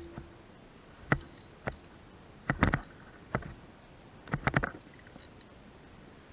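A handful of sharp clicks and knocks at irregular intervals, some single and some in quick clusters of three or four, over a quiet background.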